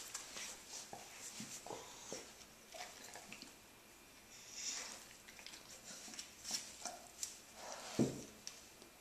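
A Doberman and a kitten play-fighting: irregular soft scuffling of paws and fur against the carpet and the dog's snuffling as it mouths the kitten, with one louder low thump about eight seconds in.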